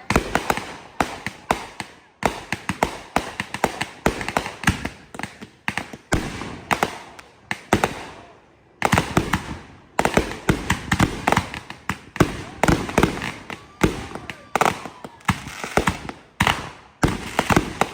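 Consumer fireworks going off in quick succession: many sharp bangs and crackles, several a second, with a brief lull a little past the middle.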